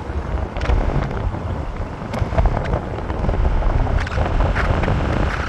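Wind buffeting the microphone: a loud, uneven low rumble that rises and falls throughout.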